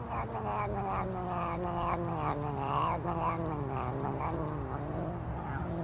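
A cat's long, low yowl: one unbroken call with a rough, pulsing edge, its pitch sinking slowly.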